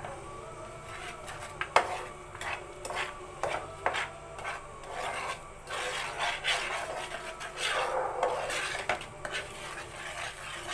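Metal spatula scraping and stirring a thick peanut butter mixture in a steel pan, in irregular rasping strokes with clicks against the pan, the sharpest knock about two seconds in.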